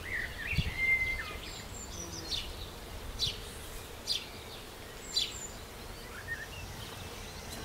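Small birds chirping and calling, with a short high call repeated about once a second, over low steady background noise.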